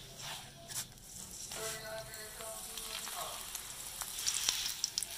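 Paratha frying in ghee on an iron tawa: a steady sizzle, with sharp crackles and louder spitting from about four seconds in.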